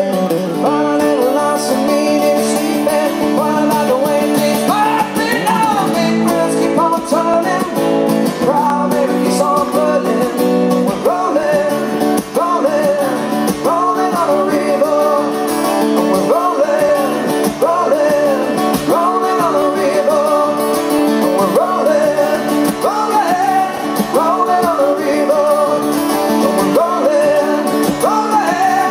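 Live acoustic folk song: two acoustic guitars strummed while two men sing into stage microphones, amplified through a PA.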